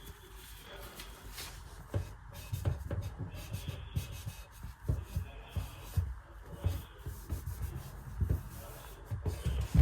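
Hands rubbing and handling around the shower trim while finishing a silicone caulk bead, irregular scraping with soft knocks.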